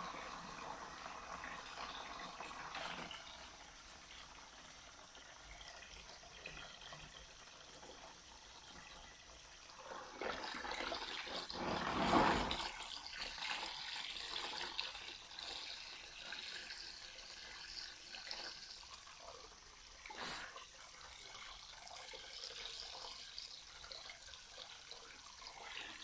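Dirty wash water draining from a Mika 6 kg semi-automatic top-load washing machine's drain hose into a plastic basin. It runs steadily and grows louder for a few seconds around the middle, with a short knock near the end.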